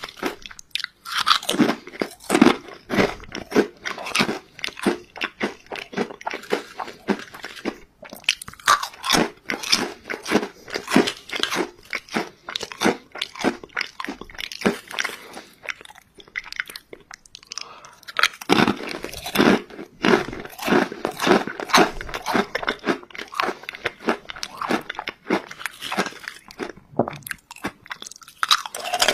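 Crisp ridged potato chips being bitten and chewed close to the microphone: rapid, sharp crunching, broken by a few brief pauses.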